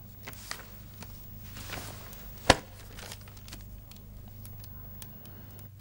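Quiet room tone with a low steady hum and faint rustles, broken by one sharp knock about two and a half seconds in.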